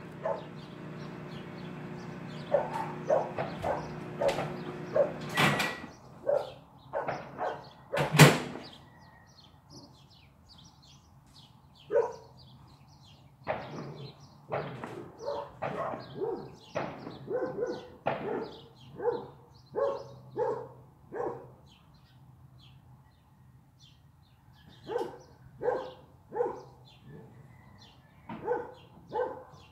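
A dog barking in repeated runs of short barks, with a pause between them. Two sharp pops from small fireworks, the louder about eight seconds in, and a steady hum that stops about five seconds in.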